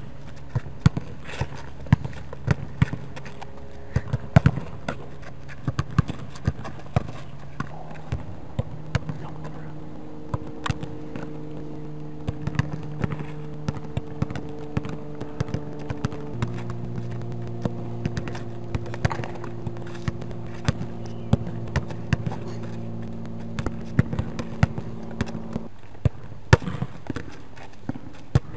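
Soccer ball struck hard against a wall and caught again and again: a run of sharp thuds from the kick, the wall and the hands, often several within a second. Under them a steady low hum shifts in pitch about 16 seconds in and stops about 26 seconds in.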